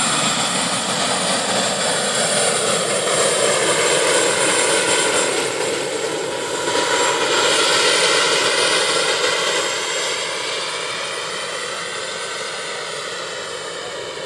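Radio-controlled scale Eurocopter Lama model helicopter with a jet turbine engine, flying: a steady high turbine whine over the noise of the rotors. It grows steadily fainter over the last few seconds as the helicopter climbs away.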